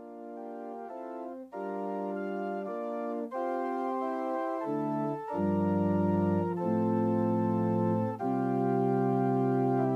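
Organ playing a slow run of held chords that grows louder, with deep bass notes coming in about halfway through.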